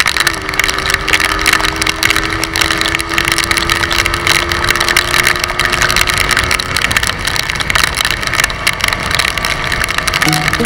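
Scooter riding on a rain-soaked road: the engine's steady drone, edging slightly up in pitch, under a loud, continuous rush of tyre spray and wind. The engine tone drops out about two-thirds of the way in, leaving only the rushing noise.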